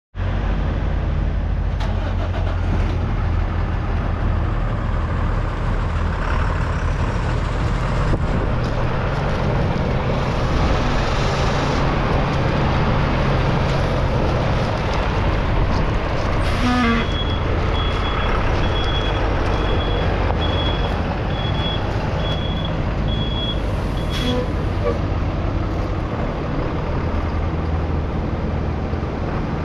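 Ford F750 truck engine idling steadily. Past the midpoint a run of short, evenly spaced high electronic beeps sounds for about seven seconds.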